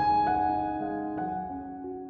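Slow background piano music: held notes and chords, with a new note coming in about a second in.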